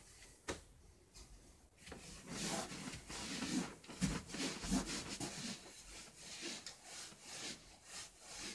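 Sneakers scuffing and stepping on a carpeted floor with clothing rustling as a person dances, in irregular bursts and a few soft thumps, with no music playing.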